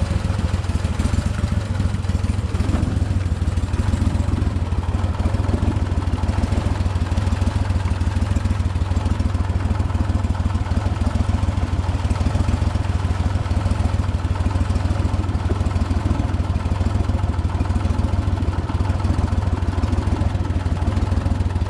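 Gator-Tail GTR40XD surface-drive mud motor running at a steady speed, pushing a jon boat along under way: a constant low engine drone with no change in pitch.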